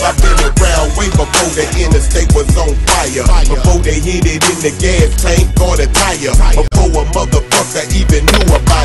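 Hip hop music with a heavy, repeating bass beat.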